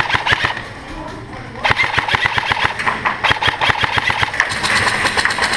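Airsoft guns firing rapid strings of shots that crack in quick succession. There is a short lull about half a second in, and the firing picks up again under two seconds in.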